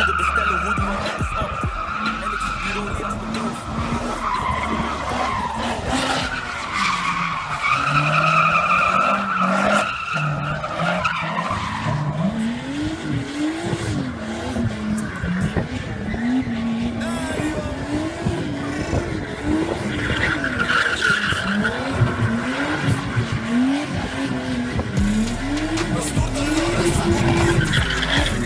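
Drift car sliding on asphalt: tires squealing in long steady whines, then the engine revving up and down again and again, about once every second or two, as the car spins donuts with the tires smoking.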